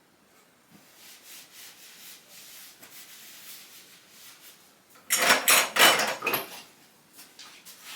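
Hand tools being rummaged through and handled, faint at first, with a loud rough scraping clatter lasting about a second and a half about five seconds in.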